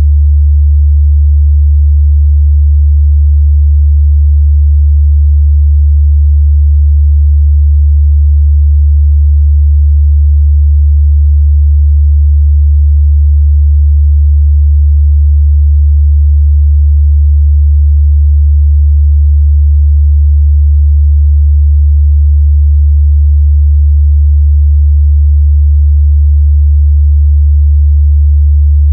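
A steady, loud 73 Hz sine-wave test tone, a pure low hum held at constant pitch and level.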